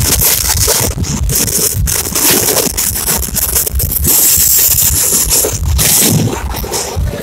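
Loud wind rushing and crackling on the microphone at the open window of a moving express passenger train, over the train's running rumble.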